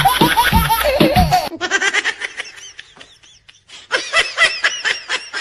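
Laughter in quick, repeated high-pitched bursts. It starts under music, eases off in a short lull about three seconds in, then comes back louder.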